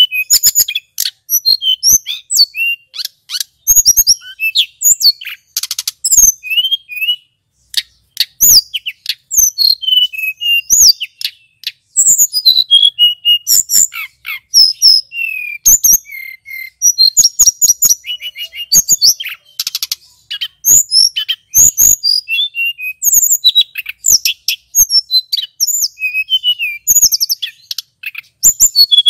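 Male hill blue flycatcher (tledekan gunung) in full song: a long, fast, varied run of sweeping whistled notes and quick trills, broken only by brief pauses.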